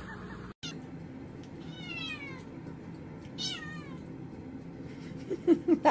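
Domestic cat meowing twice, each call sliding down in pitch, the two a little over a second apart. A louder voice-like sound begins near the end.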